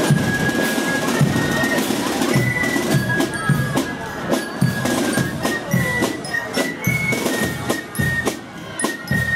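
A marching fife and drum corps playing: fifes carry a high melody in held notes that step from pitch to pitch, over a steady beat of snare drums.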